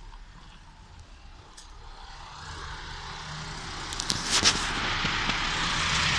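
A motor vehicle close by, its steady running noise growing louder over several seconds, with a few sharp clicks about four seconds in.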